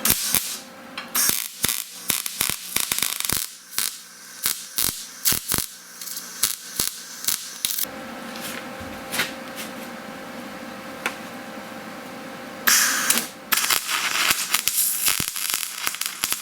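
Electric welder tacking steel: irregular sharp crackles and clicks, turning into a steadier hiss about halfway through, with a loud crackling burst near the end.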